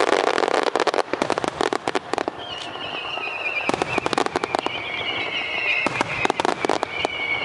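Starmine fireworks bursting in rapid volleys of dense crackling bangs, in three or four clusters. A high, slightly wavering whistle runs through the second half.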